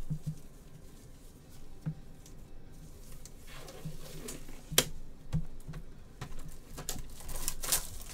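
Cardboard trading-card boxes being handled by gloved hands: scattered light taps and clicks with bits of rustling as a box is lifted from the stack, with one sharp click about five seconds in.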